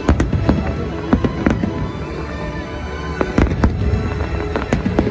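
Aerial fireworks shells bursting in an irregular series of sharp bangs, with clusters near the start and again around three to four seconds in, over music playing throughout.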